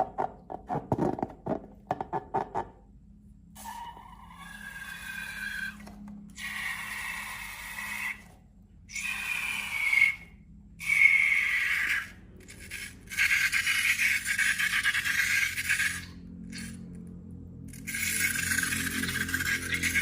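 Rubber balloons handled and emptied during slime making: rapid clicking taps for the first two seconds or so, then several stretches of hissing with a wavering squeal, broken by short pauses.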